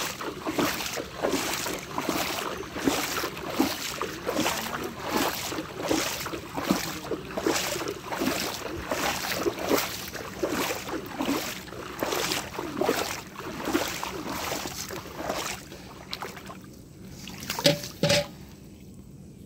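Pond water sloshing and splashing in rhythmic strokes, about twice a second, as a drag net is hauled through shallow water by men wading. The sloshing dies down near the end, broken by one brief louder sound.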